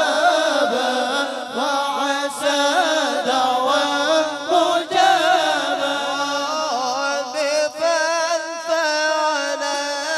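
A group of men's voices chanting an Arabic devotional song together, with long, drawn-out melodic lines, sung into microphones.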